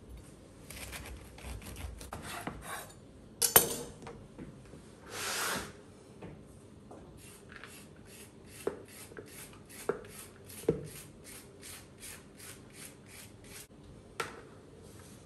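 A chef's knife sawing through a red cabbage on a wooden cutting board, with a sharp knock about three and a half seconds in as the blade comes through onto the board. Later a hand peeler shaves cabbage into a plastic bowl in quick, even rasping strokes, about three a second.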